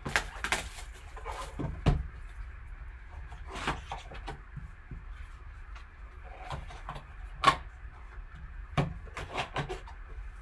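Gloved hands opening and handling a sealed trading-card box: irregular rustles of cardboard and wrapper with scattered taps and clicks, the sharpest tap about seven and a half seconds in.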